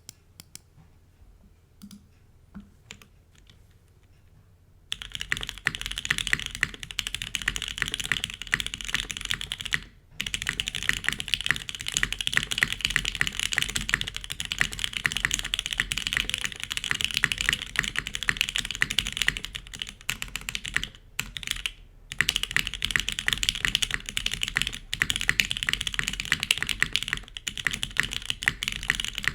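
Typing on a Geonworks F1-88 mechanical keyboard with Gateron Oil King linear switches on an FR4 plate and GMK keycaps, a clacky sound. A few scattered keystrokes, then fast continuous typing from about five seconds in, with brief pauses around ten seconds and twenty-two seconds.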